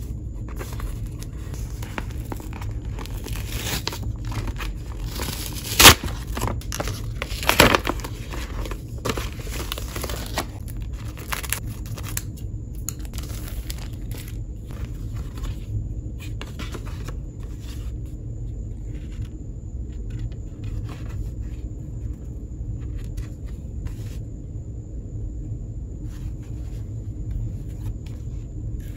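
A paper envelope being opened and the paper art prints inside handled: crinkling and rustling, with the sharpest, loudest crackle about six seconds in and another cluster near eight seconds, then softer scattered rustles. Behind it, crickets chirring steadily at a high pitch over a low rumble.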